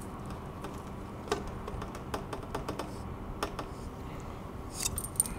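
Scattered light metallic clicks and taps as the aluminium cylinder of a Rotax 582 two-stroke engine is worked up off its piston and along the studs, with a brief cluster of sharper, ringing clinks near the end.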